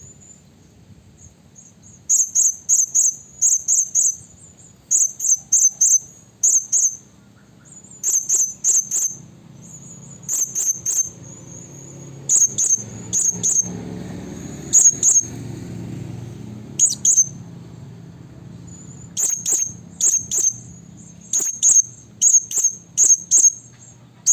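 Blue-crowned hanging parrot (serindit) calling to rivals: runs of very high, thin, squeaky notes, two to four in quick succession, repeated every second or so from about two seconds in.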